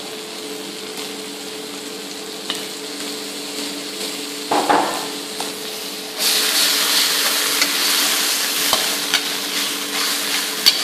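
Onion, garlic and sauces frying in a hot wok, the sizzle turning much louder about six seconds in as a metal skimmer stirs the mix, with a few clicks of the skimmer against the wok near the end. A steady hum runs underneath.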